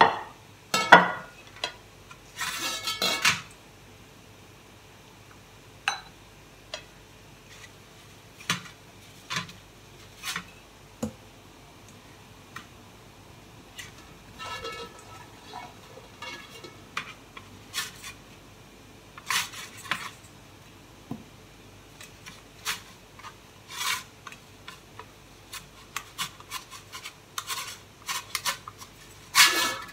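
Silicone spatula scraping and rubbing around the inside of a stainless steel pan, with scattered knocks and clinks of the metal pan.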